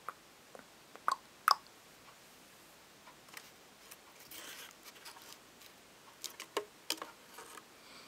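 A few sharp small clicks and a brief rustle from someone shifting and moving a hand close to the microphone. The two loudest clicks come about a second and a half in, with a cluster of clicks near the end.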